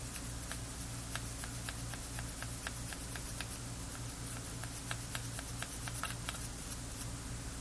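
Quick, light scratching strokes of a fiberglass scratch brush scrubbing tarnish off a metal contact to clean it for soldering, about three to four strokes a second, over a steady low electrical hum.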